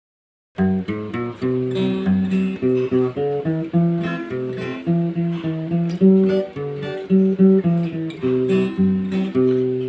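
Instrumental song intro on acoustic guitar, strummed chords and picked notes in a steady rhythm, starting about half a second in.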